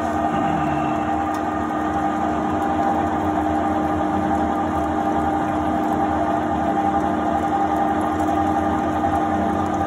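Oster heavy-duty threading machine running steadily while its die head cuts 8-threads-per-inch threads on a 1-inch steel shaft: a constant machine hum with steady tones and no change in speed.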